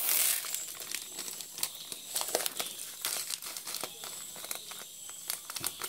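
Thin plastic packet crinkling while dry green gram pours from it into a plastic bowl of split pulses, with many small ticks of falling grains. The loudest crinkle comes right at the start.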